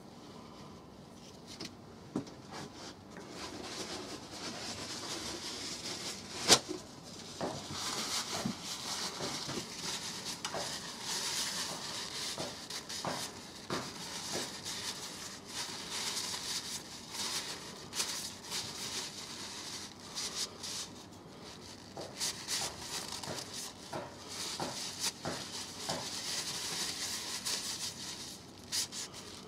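Paper towel rustling and rubbing as excess oil is wiped off a freshly oiled wooden spoon, with scattered light knocks and clicks and one sharp click about six and a half seconds in.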